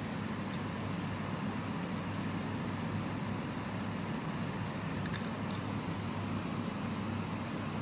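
Stainless steel watch and link bracelet clinking lightly against a glass bowl: a few faint clicks near the start and a cluster of about three around five seconds in, one of them sharper than the rest. A steady low hum runs underneath.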